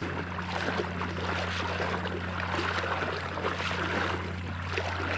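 Creek water running, an even rushing noise, with a steady low hum underneath that starts suddenly at the beginning.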